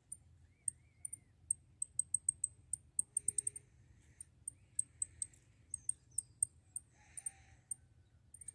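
Small finches giving short, high-pitched chirps, some single and some in quick runs of several a second.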